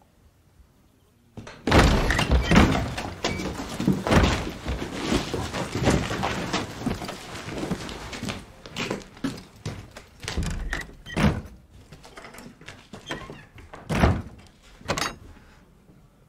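Soldiers' boots scuffling on a hard floor as bodies are carried and dragged in, with many heavy thuds. The noise starts suddenly about a second and a half in, thins out after the middle, and ends with two loud thumps near the end.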